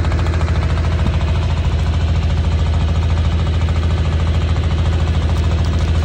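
An engine running steadily: a loud, even low hum with fast, regular pulsing.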